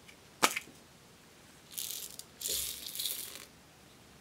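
A small plastic jar snaps open with a sharp click, then tiny beads rattle and hiss as they are shaken out of the jar onto slime, in two pours about a second apart.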